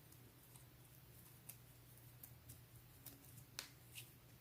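Near silence with a few faint, scattered ticks of a steel crochet hook catching and pulling silk thread while double treble stitches are worked.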